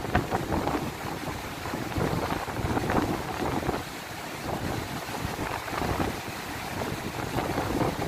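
Steady rush of Takakkaw Falls and the fast meltwater stream below it, with uneven gusts of wind buffeting the microphone.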